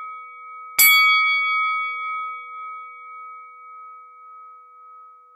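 A bell-like chime struck once about a second in, ringing on with a few clear tones that slowly fade, over the fading ring of an earlier strike.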